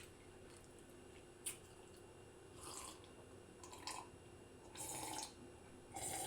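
Close, wet chewing and lip smacking of someone eating: a sharp click about one and a half seconds in, then four wet smacks about a second apart.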